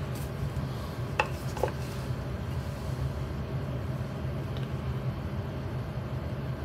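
Steady low background hum, with two faint clicks a little over a second in.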